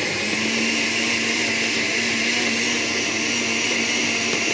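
Electric kitchen blender running at a steady speed, a constant motor whine over a coarse whirr, chopping dry twigs and herb leaves before any water is added.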